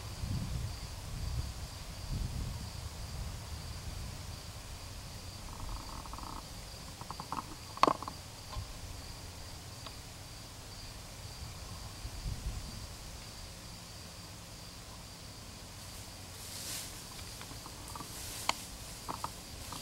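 Outdoor ambience with a steady high cricket trill and a low rumble. A few sharp clicks stand out, the loudest about eight seconds in and a couple more near the end.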